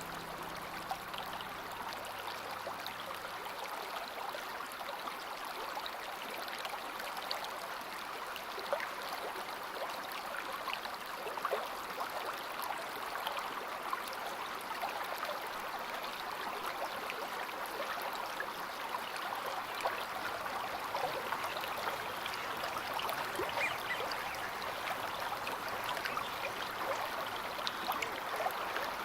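A stream flowing steadily, with small gurgles and splashes throughout. The last held notes of the instrumental music fade out in the first few seconds.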